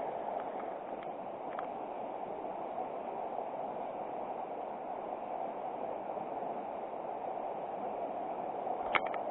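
River water rushing steadily, with a few light clicks, the sharpest near the end.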